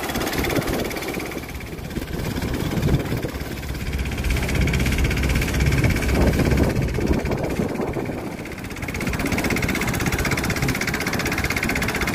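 Small engine of an outrigger fishing boat running steadily under way, a fast, even chugging.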